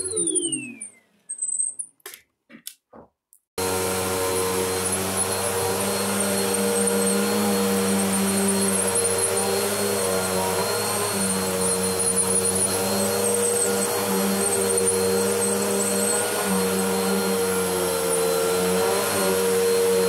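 Bissell PowerForce bagless upright vacuum cleaner's motor winding down with a falling whine, then a short near-quiet gap with a few clicks. About four seconds in the vacuum comes back on suddenly and runs steadily on the carpet and rug, a constant motor hum with a hiss.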